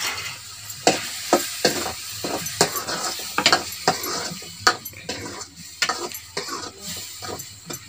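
Metal spoon stirring and scraping a pan of potato and pea curry as it fries, with a steady sizzle and irregular sharp clinks of the spoon against the pan.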